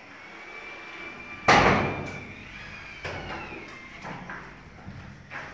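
Aluminium sliding window sashes being slid along their tracks by hand, one knocking hard against the frame about a second and a half in, then a few lighter knocks. A thin, high steady whine runs under the first half.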